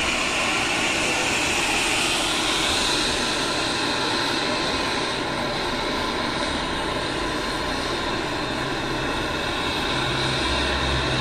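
A machine running steadily, with a high whine that rises in pitch about two to three seconds in and then holds.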